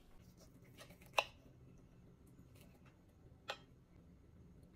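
Faint sounds of a steak knife and fork cutting a pork chop on a ceramic plate, with a sharp clink about a second in and a softer one a couple of seconds later.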